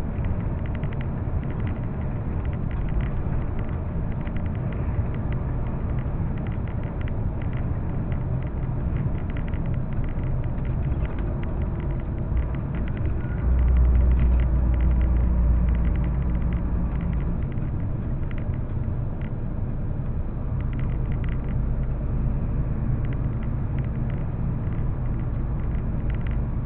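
Steady road noise inside a moving vehicle at highway speed: engine and tyre rumble. About halfway through, a louder low rumble swells for a couple of seconds, then settles back.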